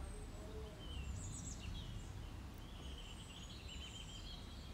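Faint background birdsong: small birds chirping in short, scattered calls over a low steady hum.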